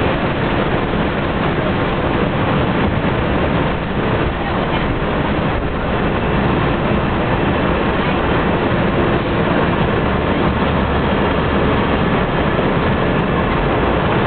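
Cabin noise inside a city transit bus: the engine and road running in a steady rumble. The low drone of the engine grows louder about ten seconds in.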